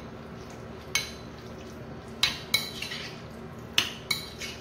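Metal spoon clinking against a glass bowl while stirring hung curd and chopped vegetables: about six sharp, irregular clinks, some of them close together about two and four seconds in.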